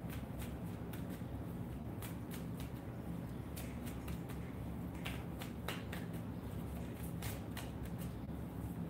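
Tarot cards being shuffled and handled: irregular soft snaps and clicks of card stock, a few louder ones past the halfway point, over a low steady hum.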